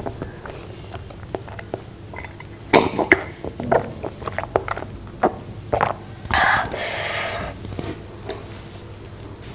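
Close-miked eating and drinking sounds: chewing of soft cake, then a run of sharp mouth clicks and swallows while drinking from a glass. About six seconds in comes a loud breathy burst from the mouth lasting about a second.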